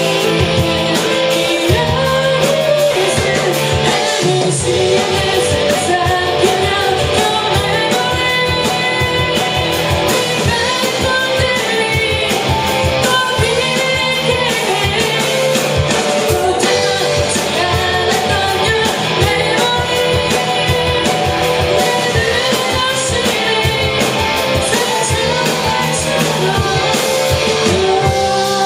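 A rock band playing live: a singer over guitars and drums.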